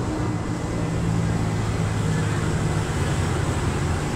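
Steady background traffic noise with a low engine hum.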